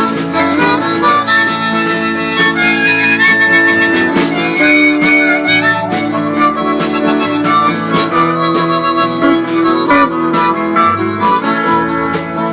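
Instrumental break of a folk song: a harmonica plays a bending melody over strummed acoustic guitar.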